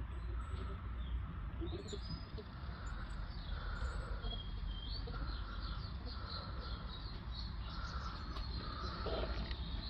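Several wild birds chirping and calling: many quick high chirps and a repeated note, over a steady low background rumble.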